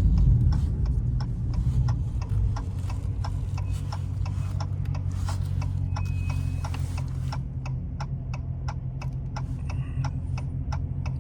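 Dodge Charger Scat Pack's straight-piped 6.4-litre HEMI V8 idling with a low steady rumble, settling down over the first couple of seconds. A turn-signal indicator ticks steadily, about two clicks a second.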